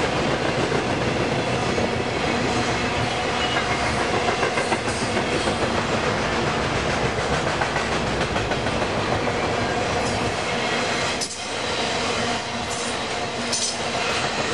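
A freight stack train's cars rolling past, the wheels clicking steadily over the rail joints.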